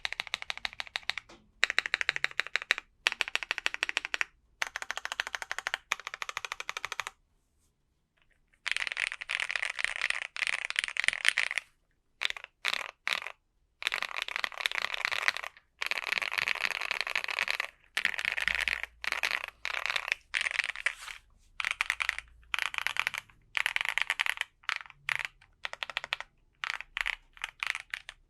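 Keychron Q5 mechanical keyboard with lubed Akko Matcha Green switches, a polycarbonate plate, foam and a tape mod, typed on in fast bursts of keystrokes with short pauses between. Near the end the keys are pressed more slowly, one at a time.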